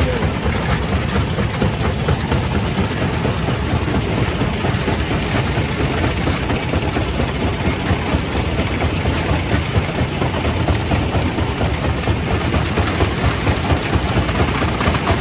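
Primary rock crusher running under load, crushing stone: a steady heavy machine noise with a dense, continuous clatter of rock being broken.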